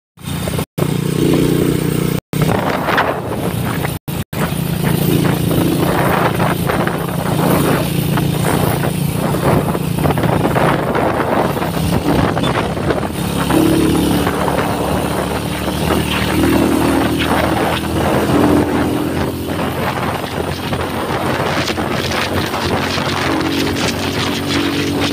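Small motorcycle engine running steadily under way, its hum shifting a little in pitch, with a constant rushing noise of wind and road. The sound cuts out briefly four times in the first few seconds.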